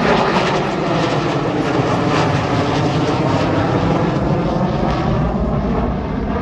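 Loud, steady jet noise from a B-2 Spirit stealth bomber's four turbofan engines as it flies low overhead, easing slightly near the end.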